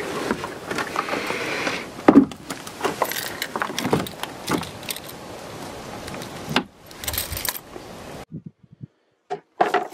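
Jingling and clicking of keys and a tag on a tape measure as it is handled, over a steady rushing background. The sound drops out for about a second near the end.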